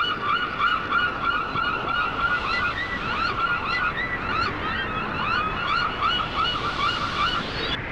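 Gulls calling over and over, a quick run of short arched cries about three a second, over a steady wash of surf; the calls stop shortly before the end.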